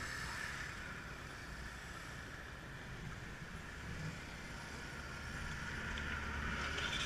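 Faint steady low rumble of vehicles, swelling slightly toward the end.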